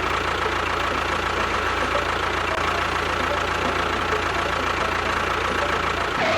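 A small motor running steadily with a constant whine and mechanical rattle.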